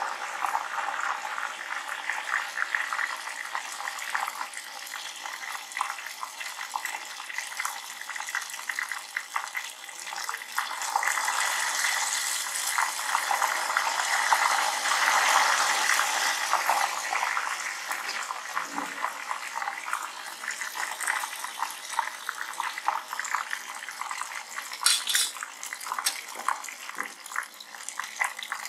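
Ghevar batter sizzling and crackling in hot oil in a deep steel pot, a dense, continuous frying hiss. It swells louder in the middle, as more batter is poured in a thin stream.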